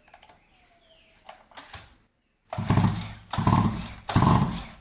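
Stihl MS 230 two-stroke chainsaw being cranked on its recoil starter with the spark plug out, three quick cord pulls starting about two and a half seconds in, each a short whirring rasp of the spinning crank. It is a spark test on the cold engine, and the ignition gives no spark.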